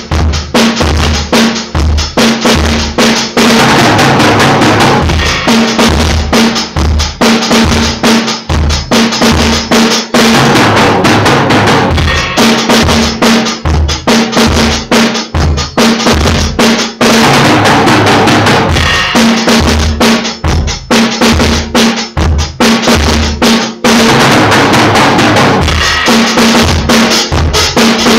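Drum kit playing a dense, steady beat with bass drum and snare, over a low held note that comes and goes.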